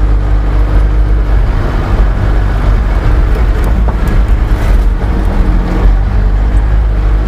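Four-wheel-drive vehicle driving along a soft sand desert track: a steady, loud low engine and tyre rumble.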